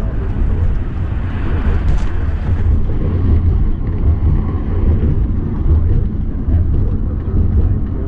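Steady low rumble of an RV driving at road speed, engine and tyre noise heard from inside the cab.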